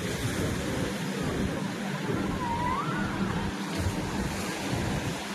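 Wave pool water surging and washing, a steady rushing noise. About two and a half seconds in, a short high sound wavers up and down in pitch over it.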